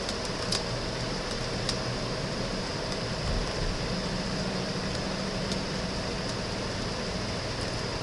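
Steady room hum and hiss, like a fan running, with a few faint clicks.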